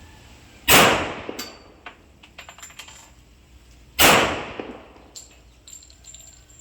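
Two 9mm pistol shots about three seconds apart, each a sharp crack with a ringing tail that dies away over about a second, with a few faint clicks after each.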